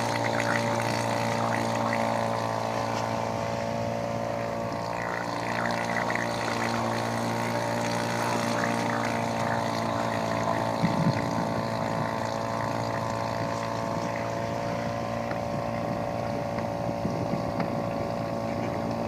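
Electric RC speedboat's motor whining at a steady pitch as the boat runs across the water, with a brief knock about eleven seconds in.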